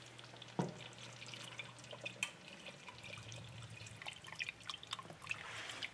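Milk pouring from a glass measuring cup into a pot of chowder, then a wire whisk stirring it in, with faint light clicks of the whisk in the pot.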